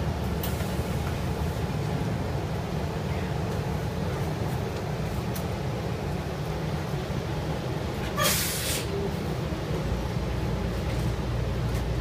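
Inside a city transit bus: the steady low rumble of the bus running. About eight seconds in comes one sharp hiss of compressed air, about half a second long, from the bus's air system.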